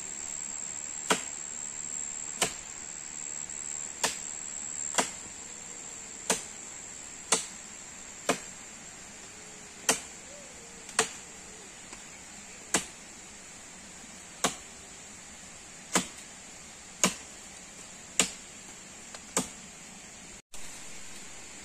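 Blade chopping branches in a tree: sharp single strikes into wood, about one a second, some fifteen in all.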